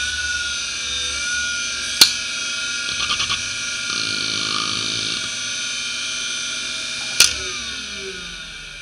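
Fuji Electric FK319A-240R 3.5-inch hard drive running with a steady high whine from its spindle, whose bearings are badly worn. About two seconds in there is a sharp click, then a quick run of head-seek ticks and a buzzing stretch of seeking as the drive initialises. Near the end a second sharp click comes, and the whine falls away as the platters spin down.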